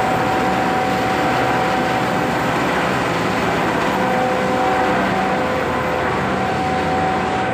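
Red chilli grinding mill (pulverizer) with its blower and cyclone running steadily while grinding chilli into powder: a dense, even mechanical noise with a steady whine running through it.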